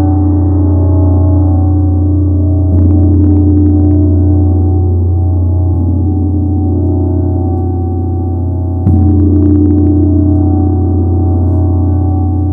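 Large 80 cm Tibetan gong struck with a soft felt mallet, its deep hum and shimmering overtones ringing on without a break. It is struck again about three seconds in, lightly near six seconds, and firmly again about nine seconds in, each stroke swelling the sound.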